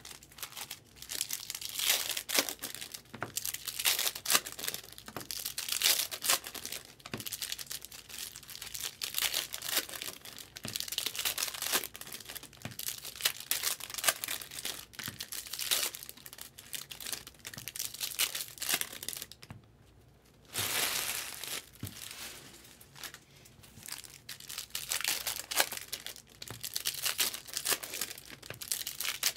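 Foil trading-card packs being torn open, the wrappers crinkling and crackling as they are ripped and handled. The sound is irregular, with a brief pause about two-thirds of the way through.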